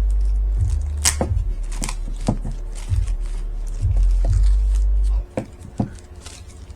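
Charger and packaging being handled during an unboxing: a scatter of sharp plastic clicks and taps, over a low rumble of handling noise on the microphone that drops away about five seconds in.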